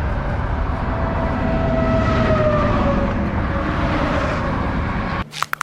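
Highway traffic noise: a vehicle passing close by, a steady low rumble with a faint tone that slowly falls in pitch as it goes past. Near the end the rumble stops abruptly and a few sharp knocks follow.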